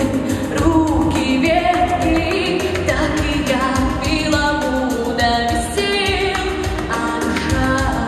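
A woman singing a pop song live into a handheld microphone, with held, wavering notes over a pop accompaniment with a steady beat.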